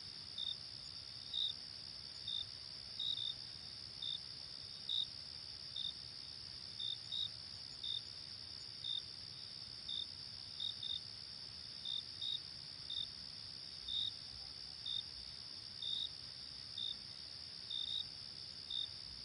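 Crickets chirping: a steady high trill, with louder separate chirps about once a second, some coming in quick pairs.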